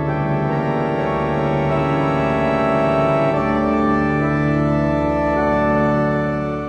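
Background music: slow, sustained organ-like chords, with the chord changing about halfway through.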